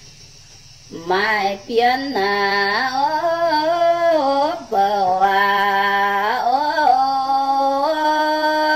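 A woman singing a Red Dao (Iu Mien) folk song, one voice with sliding, drawn-out notes. She starts about a second in, breaks off briefly near the middle, and closes on a long held note.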